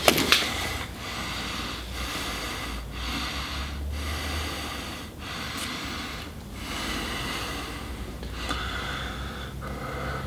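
A man breathing heavily in quick, noisy breaths, about one a second, which opens with a short sharp sound.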